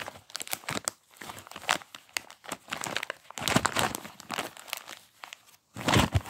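Glossy flyer paper packing crinkling and rustling as it is unrolled by hand, in irregular crackles, with louder crumpling bursts a little past halfway and again near the end.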